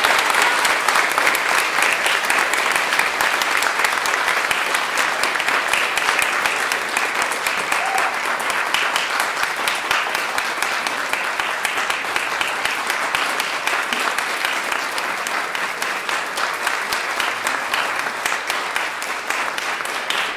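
Audience applauding: steady, dense clapping that eases off a little toward the end.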